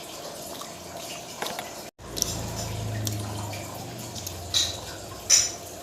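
Close-miked eating sounds: wet chewing and mouth smacking, with a few sharp clicks, the loudest near the end.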